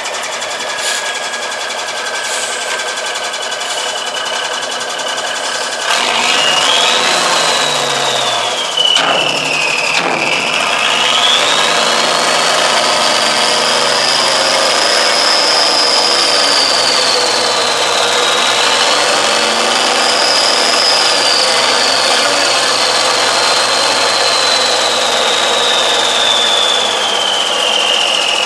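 A Freightliner dump truck's diesel engine is running while its hydraulic hoist pump whines, raising the dump bed. About six seconds in, the engine speeds up and gets louder, and the whine jumps up in pitch, then slowly wavers up and down as the bed lifts.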